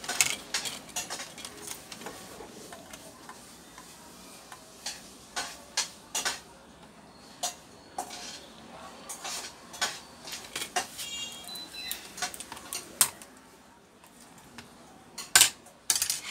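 Irregular clicks and clacks of a Lenovo G450 laptop's plastic case parts being handled and fitted by hand on a workbench, with two louder knocks near the end.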